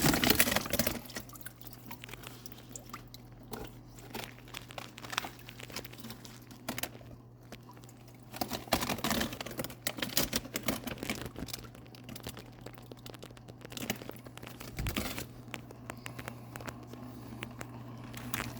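Packaging crinkling and rustling with irregular knocks and clicks as pieces of live rock are handled and set into a container. A steady low hum runs underneath.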